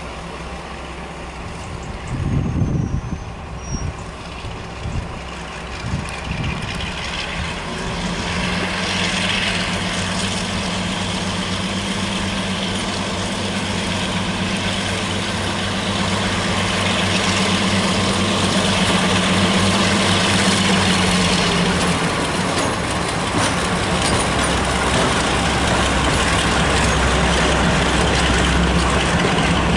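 A few low thumps about two seconds in. Then the twin Maybach diesel engines of a Class 42 Warship diesel-hydraulic locomotive drone steadily and grow louder as it approaches and passes close by, working a passenger train. The drone gives way to a deep rumble of the coaches rolling past near the end.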